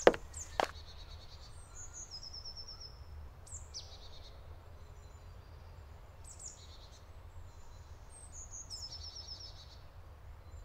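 Woodland birds singing: scattered high chirps and two similar high trilled phrases a few seconds apart, over a low steady rumble. Two sharp knocks in the first second.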